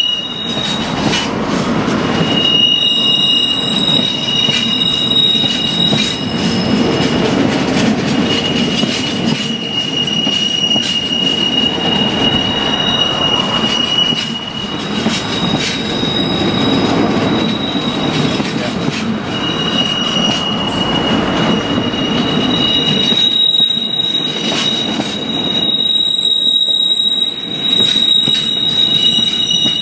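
Long train of empty coal hopper wagons rolling past on a curve: a steady rumble of wheels on rail, with high-pitched wheel squeal that comes and goes several times.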